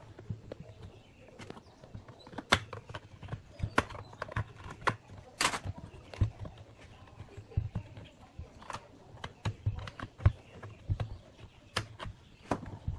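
Irregular clicks, taps and knocks of plastic and metal as the plastic rear handle housing of an old Stihl chainsaw is worked loose and the saw body is shifted on a metal workbench. There is an occasional dull thud.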